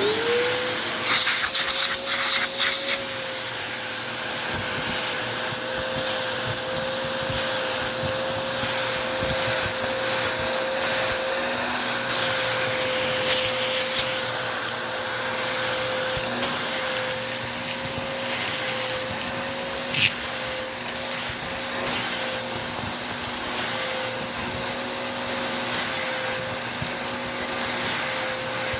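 Bissell vacuum cleaner switched on, its motor rising quickly to a steady whine and running on. For the first few seconds it crackles loudly as it sucks up grit, with a few single clicks of debris later.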